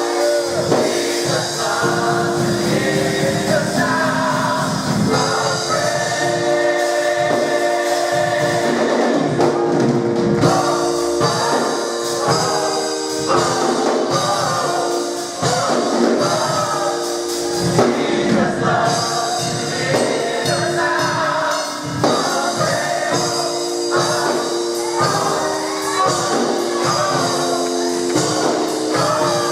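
Gospel mass choir singing in full harmony, with instrumental backing and a tambourine keeping the beat.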